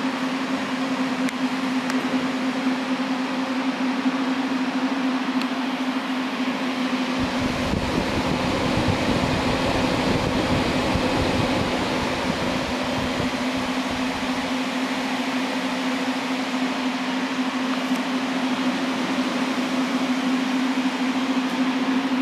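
Cooling fans of a CoinTerra TerraMiner IV Bitcoin ASIC miner running with a steady hum and rush of air; the air noise turns deeper and louder from about seven to fourteen seconds in, as the rear fans are approached up close.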